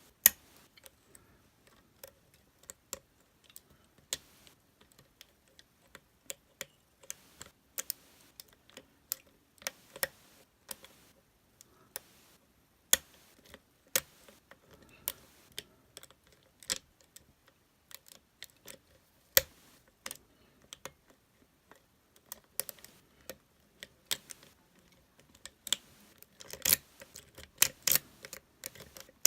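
Lock picks and a tension wrench working in a Master Lock lockout-tagout padlock: irregular sharp metallic clicks and ticks, one every second or so, growing busier near the end.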